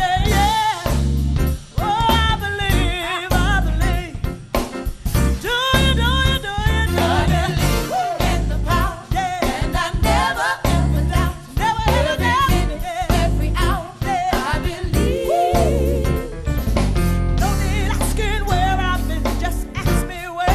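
Live gospel-soul song: a female lead vocal sings a wavering, melismatic melody over a band with bass and drum kit.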